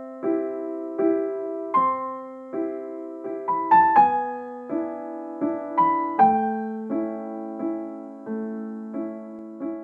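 Soft intro music on piano: a slow series of chords, a new one struck about every three-quarters of a second, with a quick run of rising notes about four seconds in.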